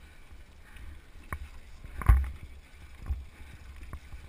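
Low muffled rumble of a racing sidecar on the move, picked up by an onboard camera, with scattered knocks and one loud thump about two seconds in.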